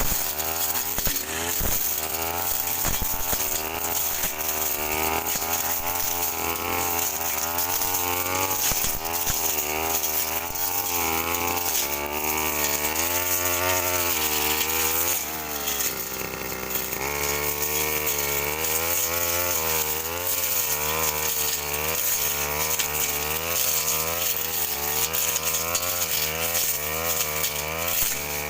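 Brush cutter engine running hard while its blade cuts thick bush grass and cogon grass. The engine pitch keeps rising and falling as the cutting load changes, and dips lower briefly about halfway through.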